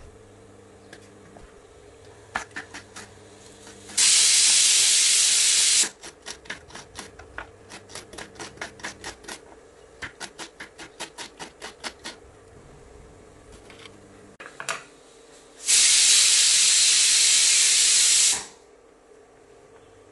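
Kitchen knife chopping green beans and carrots on a wooden cutting board, in quick runs of strokes about four a second. Twice a loud, even hiss of steam lasting about two seconds starts and cuts off abruptly: a pressure cooker venting through its weight.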